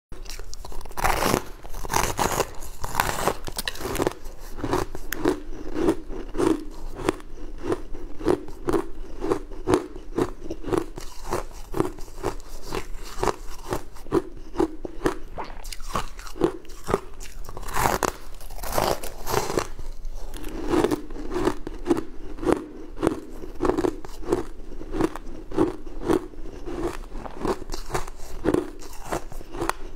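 Close-miked crunching of crumbly white ice being bitten and chewed: dense crackling of ice breaking between the teeth, with a steady chewing rhythm of about two to three crunches a second. Bigger bites stand out about a second in, around three seconds, and again around eighteen seconds.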